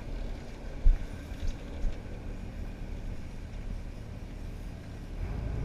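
Boat engine running at idle, a steady low rumble with wind and water noise over it. A few short thumps come in the first two seconds, the loudest just under a second in, and the engine hum grows louder and steadier near the end.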